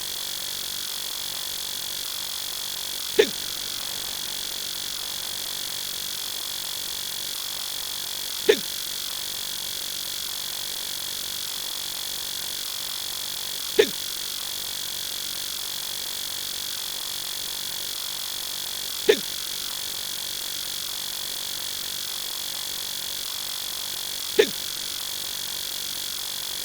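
Adult male hiccup sound effect, repeated five times about every five seconds over a steady high-pitched whine and hiss.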